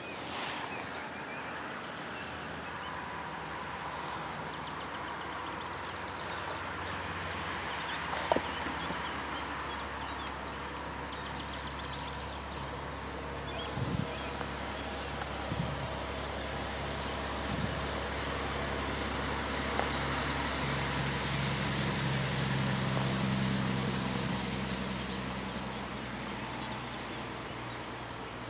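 A low motor-vehicle engine hum that grows louder to its peak about four-fifths of the way in and then fades, like a vehicle passing, with a few light clicks along the way.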